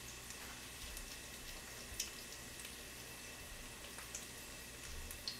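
Faint stovetop cooking: a soft steady hiss with a few light ticks and pops, from a pot of cheonggukjang stew heating on a gas burner, not yet at the boil, beside a pan with a fried egg.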